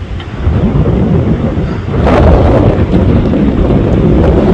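Wind buffeting the phone's microphone, a loud low rumbling rush that grows stronger about two seconds in.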